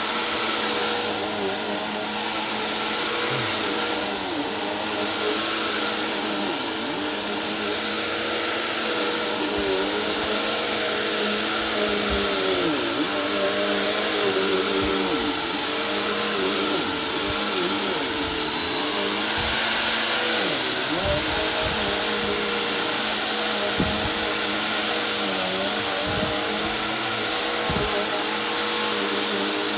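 Bissell PowerForce Helix upright bagless vacuum cleaner running steadily as it is pushed back and forth over a sandy rug. The motor whine is constant and high, and its pitch sags briefly and recovers again and again as the brush roll meets the rug.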